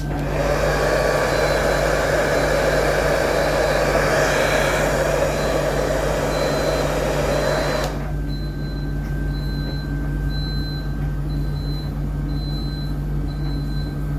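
A hot-air blower runs for about eight seconds to heat a heat detector for a test, then cuts off abruptly. A high electronic beep pulses a little under twice a second through most of it and carries on after the blower stops.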